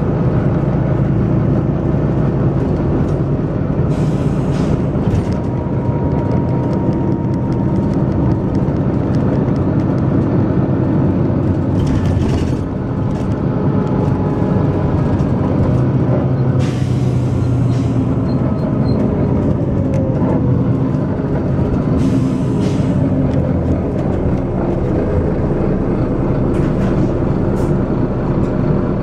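Volvo B9TL bus's six-cylinder diesel engine running hard with a steady thrash, the pitch rising and falling a little, and several short hisses of compressed air from the bus's air system.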